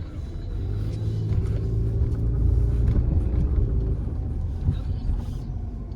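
Low vehicle rumble heard from inside a moving car, swelling to a peak about halfway through and easing off again.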